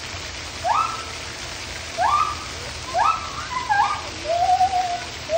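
Gibbon calling: a series of short rising whoops about a second apart, then quicker notes and a longer held hoot near the end, over a steady background hiss.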